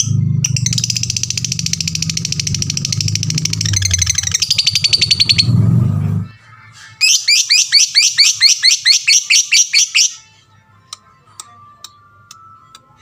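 Lovebird singing: a long, rapid, high trilling chatter for about six seconds, then after a short break a second run of sharp chirps, about five a second, for some three seconds, followed by a few faint clicks.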